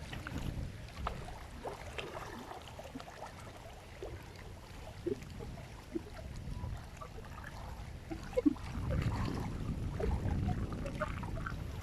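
Wind rumbling on the microphone, swelling near the end, with a few small scattered clicks and taps.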